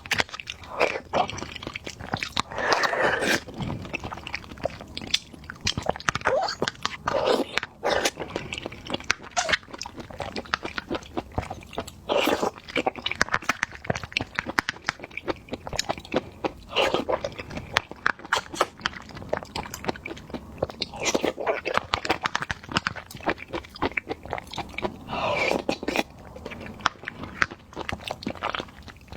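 Close-miked chewing and biting of jelly snacks: a steady stream of small crunchy clicks, with a louder, longer bite every four to five seconds.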